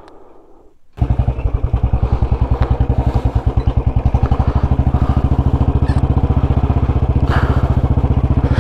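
Motorcycle engine running while the bike is ridden, a fast, even train of low exhaust pulses. It comes in abruptly about a second in.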